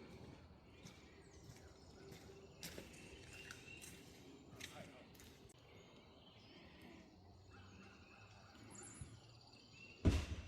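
Quiet outdoor background with a few faint bird chirps and scattered light clicks, then one loud sharp knock near the end.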